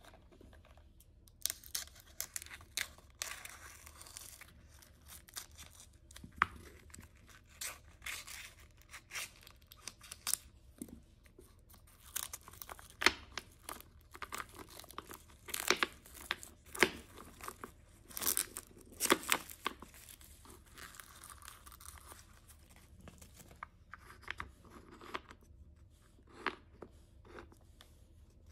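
Packaging being torn open and crinkled by hand, in irregular bursts of rustling, tearing and sharp clicks.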